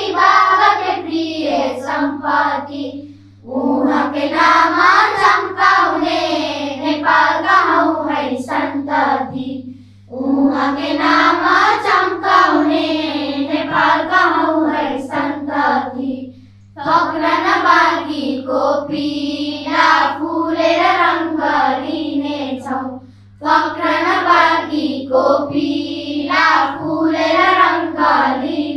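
A group of children singing together, phrase after phrase with short breaths between them, over a steady low hum.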